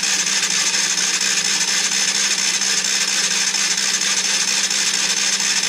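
Honda CB125E single-cylinder engine being cranked over on its electric starter motor with the spark plug out, a steady even whir with no firing. The fresh, never-started rebuild is being spun to prime its oil system.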